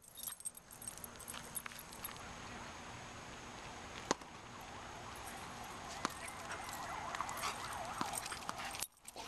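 A tennis ball knocking on a hard court: single sharp knocks about four, six and eight seconds in, the first the loudest. A wavering high wail runs under it through the second half.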